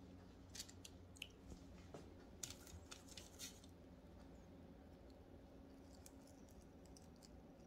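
Near silence with a low room hum and a few faint clicks and taps in the first half, from strawberries being dipped in melted candy coating in a ceramic bowl with a metal spoon and set down on a paper-lined tray.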